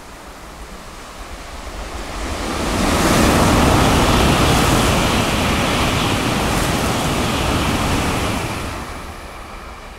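Shinkansen bullet train passing through a station at high speed without stopping: a rushing roar of air and wheels that builds from about two seconds in, stays loud for about five seconds, then fades, over a steady hiss of heavy rain.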